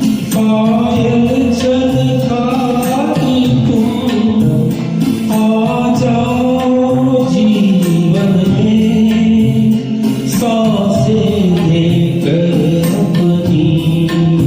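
A ghazal sung to musical accompaniment, the voice holding long, slowly bending notes.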